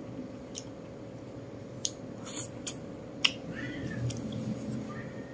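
Close-up eating sounds: chopsticks and a spoon clicking against the plate as meat is picked off a bone, with soft chewing and mouth noises. The clicks come singly and irregularly, about half a dozen of them.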